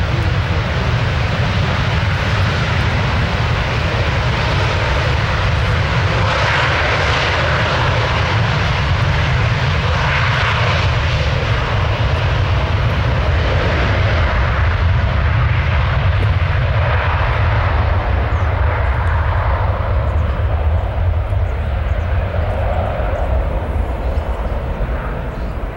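Twin jet engines of an Airbus A330 at take-off thrust during the take-off roll: a loud, steady rumble with a broad hiss on top. Over the last few seconds the hiss thins out and the level eases as the airliner accelerates away down the runway.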